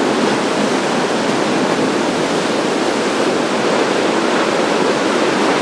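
Ocean surf: breaking waves and foaming whitewater rushing against a rocky shore, a loud, steady roar of water.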